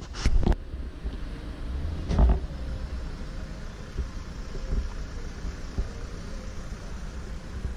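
Wind buffeting the microphone as a steady low rumble, with two louder thumps: one just after the start and one about two seconds in.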